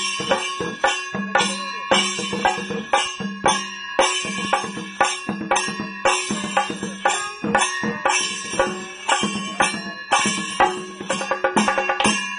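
Chenda drums beaten with sticks in a Kerala chenda melam ensemble: a fast, continuous run of strokes with regular louder accents, and a steady bright ringing held above the beat.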